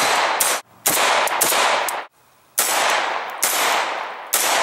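A string of single rifle shots from AR-15 rifles fired semi-automatically, about eight at irregular spacing. Each crack is followed by a trailing echo.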